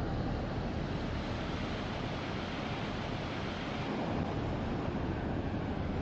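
Surf breaking and washing up onto a sandy beach, a steady rushing noise.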